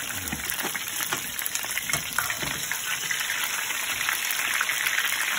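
Rack of lamb sizzling as it sears in hot oil in a frying pan, a steady hiss that grows a little louder, with a few light clicks of metal tongs turning the meat.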